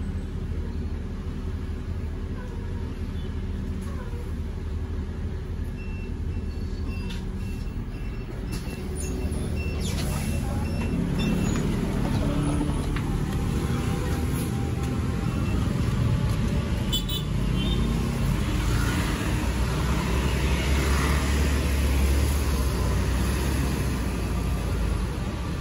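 Scania K310IB city bus heard from inside the cabin as it runs, with a string of short beeps. Then, outside, the bus's engine rumbles as it pulls away amid street traffic.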